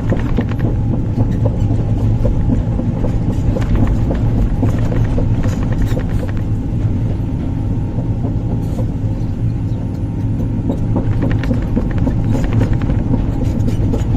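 Large hydraulic excavator's diesel engine running steadily under load, with scattered knocks and clanks from digging.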